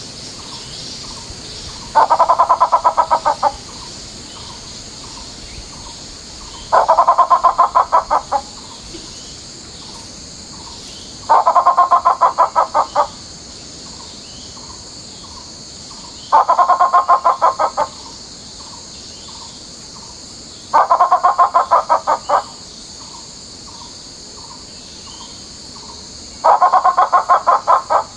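Grey peacock-pheasant calling: a loud, rapid pulsed cackle of about a dozen notes, about a second and a half long, repeated six times about every four and a half seconds, over a steady high hiss.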